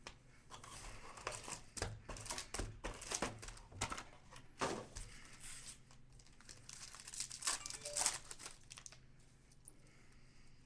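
Trading card pack wrappers being torn open and crinkled by hand, in two runs of quick crackling.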